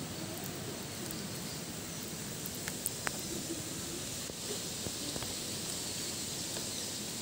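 Steady background hiss of outdoor ambience, with a couple of faint clicks about three seconds in.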